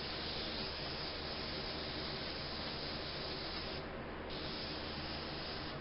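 Airbrush spraying yellow-tinted lacquer onto a guitar headstock: a steady hiss of air and paint that stops for about half a second around four seconds in, then starts again. A steady low hum runs underneath.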